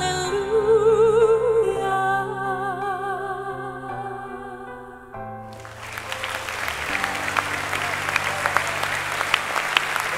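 A voice sings a slow, high melody with wide vibrato over held low accompanying notes. About halfway through, a large audience breaks into applause, which continues over the low notes.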